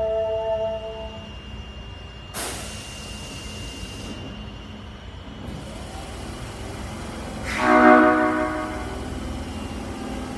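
Osaka Metro Tanimachi Line train sounding its horn: a short pitched blast at the start, then a louder horn blast of about a second near the end. A sudden rush of train noise comes in about two seconds in.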